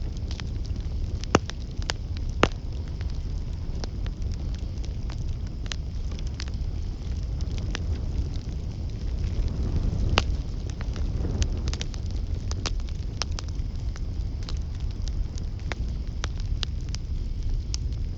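Campfire burning with irregular crackles and snaps of burning wood over a low steady rumble; two louder pops come early on and the flames swell briefly near the middle.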